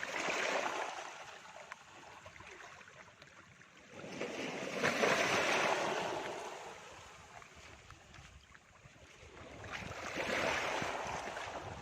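Small waves washing against a reservoir shore, swelling and ebbing three times about five seconds apart.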